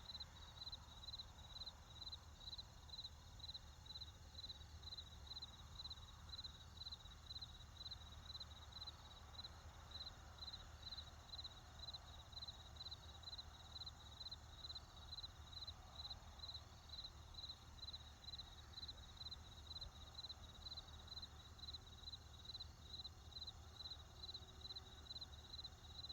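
Crickets chirping in an even rhythm, about two chirps a second, over a faint steady low rumble of distant traffic.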